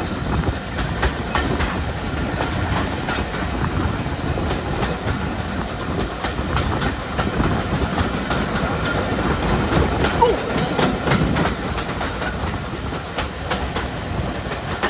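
Steam-hauled passenger train running along the track: a steady rumble with the carriage wheels clicking over the rail joints.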